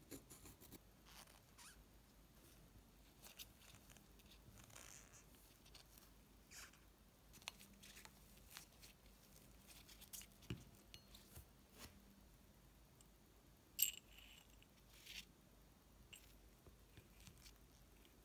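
Near silence with faint, scattered handling sounds: small clicks and scrapes of gloved hands working a leather washer and polished brass blowtorch parts, with one sharper click about two-thirds of the way through.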